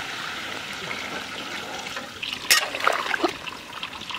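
Water pouring from a steel bucket into the curry in a large metal kadai, a steady splashing trickle. About two and a half seconds in comes a loud sharp metal clank, then a few shorter clinks and scrapes of a metal spatula against the pan.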